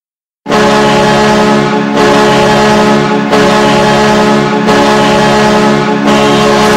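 Dallas Stars arena goal horn, starting suddenly about half a second in and sounding loud blasts that run almost together, with short dips between them about every second and a half. This is the five-blast version, which marks the team's fifth goal.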